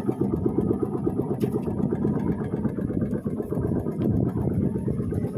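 A small engine runs steadily with a fast, even firing beat.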